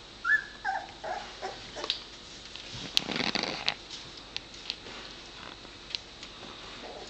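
Newborn puppies nursing, giving a few short, high squeaks and whimpers in the first second or two. A brief rustle about three seconds in, and a few small clicks.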